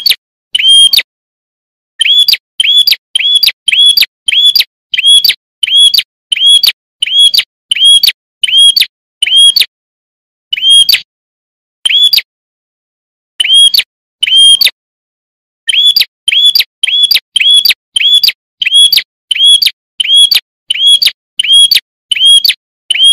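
Prinia (prenjak) calling: one short, sharp chirp repeated about twice a second, each note rising and then falling, in runs broken by a few brief pauses. The gaps between notes are dead silent.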